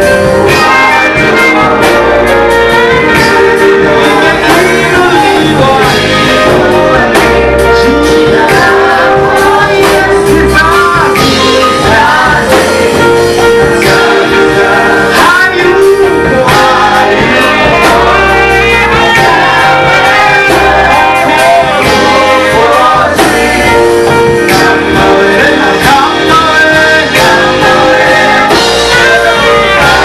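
A mixed group of men and women singing a gospel worship song into microphones, backed by a live band with drum kit.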